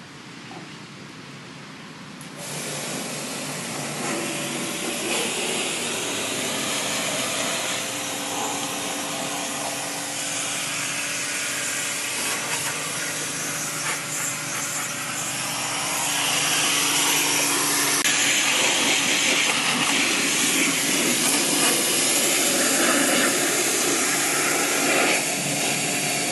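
Pressure washer running, its water jet hissing as it sprays through a window air conditioner during cleaning, over a steady motor hum. The spray starts about two seconds in and gets louder a little past halfway.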